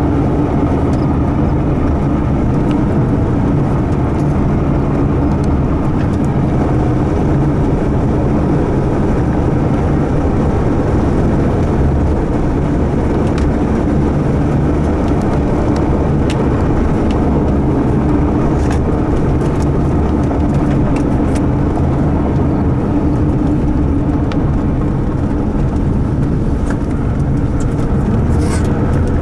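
A car driving at steady speed: engine and tyre and road noise, a constant rumble with a faint engine tone that rises slightly near the end.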